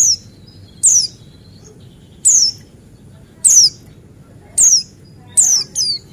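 White-eye (pleci buxtoni) calling: short, high notes sliding downward, repeated about once a second, with two in quick succession near the end.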